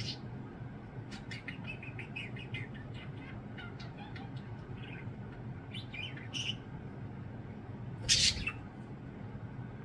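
Pet budgies chirping in short, scattered twitters over a steady low hum, with a brief loud rush of noise about eight seconds in.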